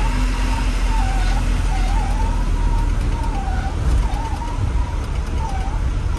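Heavy truck engine running with a steady low rumble, while a high wavering tone dips in pitch every second or so over it.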